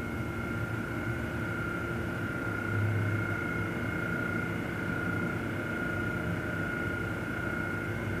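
A steady hum with a high, slightly wavering whistle-like tone over a low rumble that swells briefly about three seconds in. It is the sound presented as an unexplained noise in the empty metro station.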